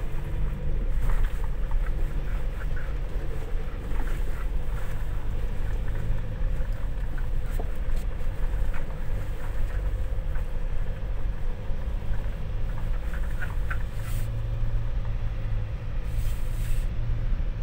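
Ford Ranger FX4 Max pickup driving on a rough rural road: a steady low drone of engine and tyres, with scattered small rattles and knocks.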